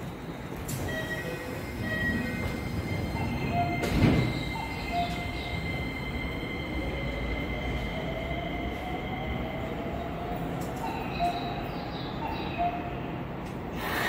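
Keisei electric train at a station platform: a steady electric whine over a rumble, with a thump about four seconds in and a tone that rises slowly from about six seconds in, like traction motors starting up.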